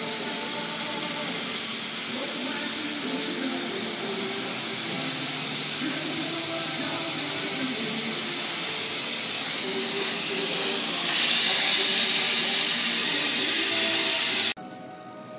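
CO2 laser engraving and cutting machine running while engraving a wooden board: a loud, steady hiss of blowing air and fans. The hiss grows louder about three quarters of the way through and cuts off suddenly near the end.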